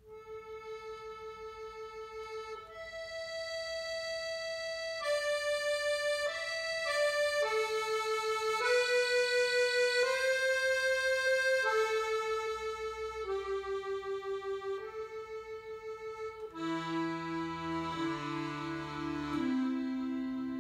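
Goldencup chromatic button accordion played solo: a slow melody of single held notes, one after another, with bass notes and chords joining in near the end.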